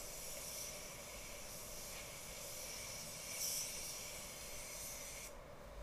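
Gravity-feed paint spray gun hissing steadily as compressed air atomises clear coat onto a car body. The air cuts off abruptly near the end as the trigger is released.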